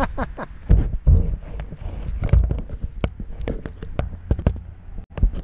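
Close handling noise as a small bass is unhooked from a hard-bodied treble-hook lure: a run of sharp, irregular clicks and taps, with low rumbling thumps on the microphone about a second in and again near the middle.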